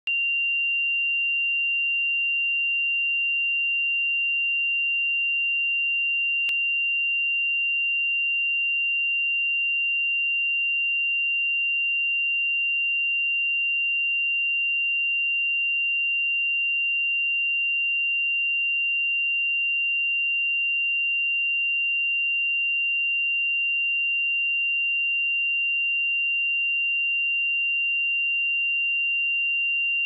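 A pure 2774 Hz sine-wave test tone: one steady high-pitched tone held at constant pitch and loudness.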